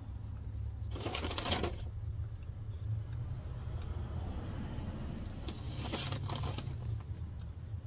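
Clothing rustling as a dress is handled and folded, in two short bouts about a second in and about six seconds in, over a steady low hum.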